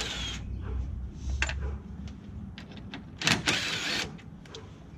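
Hand work on a truck's transmission cooler: scattered metal clinks and knocks, with two longer scraping rushes, one at the start and one about three seconds in, as the cooler is worked out of the front end.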